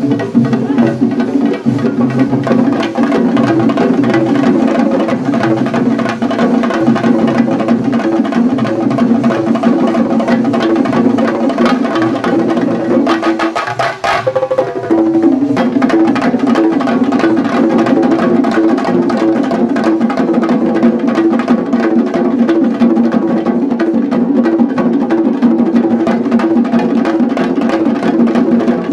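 Shinkarimelam ensemble of chenda drums beaten fast with sticks in a dense, driving rhythm. It breaks off for about a second around the middle, then comes straight back in.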